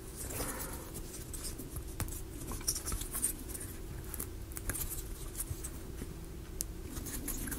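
Faint handling noises of small wooden model parts: light scratching and scattered small clicks as pieces are fitted and pressed into place, over a faint steady hum.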